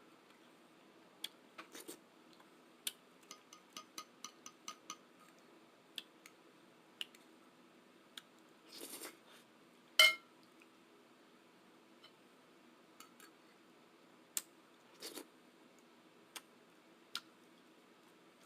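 Eating sounds: a metal utensil clicking and clinking against a dish, a quick run of small clinks a few seconds in and one loud ringing clink about halfway through, with a couple of short soft mouth sounds of eating in between.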